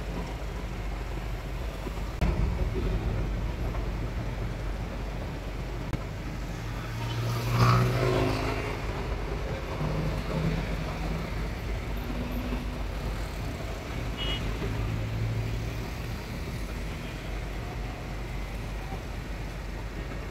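City road traffic: a steady rumble of passing cars. One vehicle passes close about seven seconds in, the loudest moment, and a lighter one passes later.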